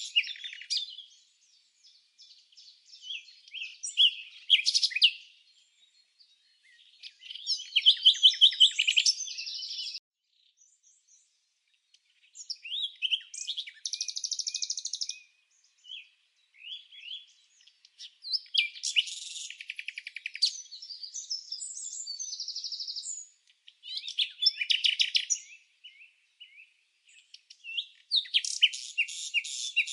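Songbirds chirping and trilling in quick, high phrases of a second or two each, with short pauses between them.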